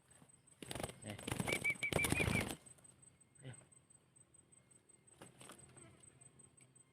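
A freshly caught spotted dove flapping its wings hard in fast strokes for about two seconds, with a quick run of short high squeaks partway through. Two brief, weaker flutters follow.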